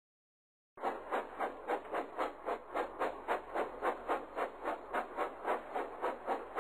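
Steam locomotive puffing: a steady rhythm of chuffs, about four or five a second, starting just under a second in.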